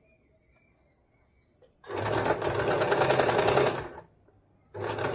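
Usha sewing machine stitching a quarter-inch seam in shirt fabric, in two runs: it starts about two seconds in, runs for about two seconds, stops briefly, and starts stitching again near the end.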